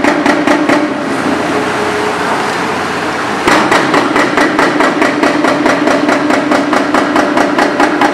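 Hydraram FX 680 hydraulic breaker hammer on a Doosan DX490LC-3 excavator hammering in rapid, even blows of about six a second. It stops about a second in, leaving the excavator's engine drone, and starts hammering again about three and a half seconds in.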